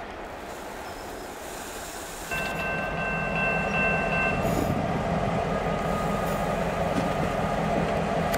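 Diesel locomotive running at low speed. The sound steps up about two seconds in, and a high steady tone sounds for about two seconds right after.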